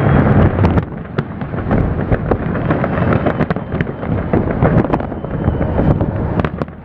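Fireworks display: a dense, continuous run of booms and crackling pops over a low rumble, loudest in the first second.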